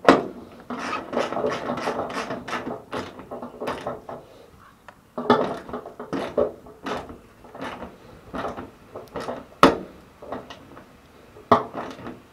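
A 3/8-inch bolt being tightened down through a wooden floor panel into a toothed tee nut, giving rapid clicking and scraping of metal on wood. It comes in two spells with a short pause about five seconds in, and a sharp knock just before ten seconds in.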